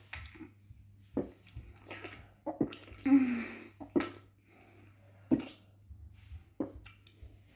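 A person gulping a drink close up, a swallow roughly every second and a half, with a breathy, voiced exhale about three seconds in.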